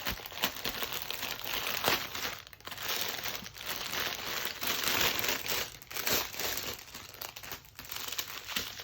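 Plastic packaging crinkling and rustling as small bags of diamond painting drills are handled, with many small sharp crackles.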